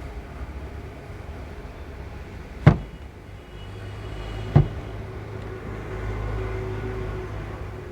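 Two sharp cracks, about two seconds apart, from the patient's spinal joints during a chiropractic manipulation, over a steady low background rumble.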